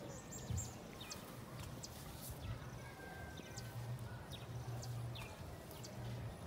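Outdoor ambience: many short, high chirps scattered throughout over a low hum that comes and goes.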